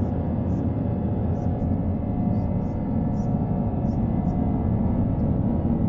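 Steady layered red noise: a continuous deep rushing hiss, heaviest in the lows and fading toward the highs, holding an even level throughout.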